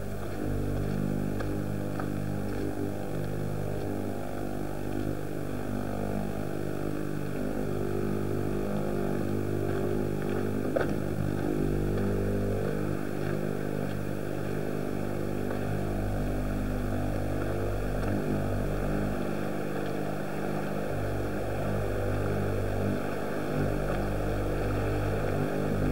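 Steady engine hum, even in pitch and level, as from a vehicle moving slowly, with one short sharp knock about eleven seconds in.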